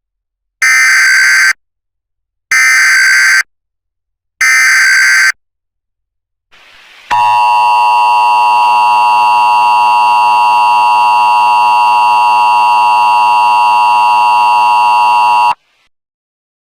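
Emergency Alert System broadcast tones: three short bursts of SAME header data, about two seconds apart, then after a brief gap a loud, buzzy attention signal held steady for about eight seconds before cutting off sharply.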